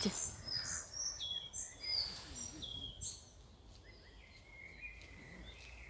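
Small songbird singing: a quick run of short, high whistled notes that fades after about three seconds, with one fainter, lower note near the end.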